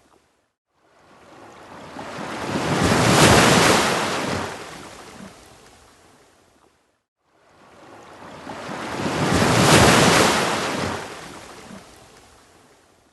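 Ocean waves on a beach: two waves, each swelling to a peak as it breaks and then washing back to nothing over about six seconds, with a brief dead silence between them.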